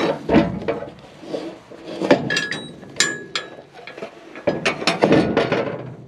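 Aluminium trailer loading ramp being handled at the tailgate: a string of metal knocks and clatter, with a few sharp clinks that ring briefly about two to three seconds in.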